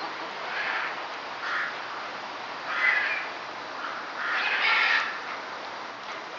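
A bird calling: four rough calls roughly a second apart, the last one longer and the loudest.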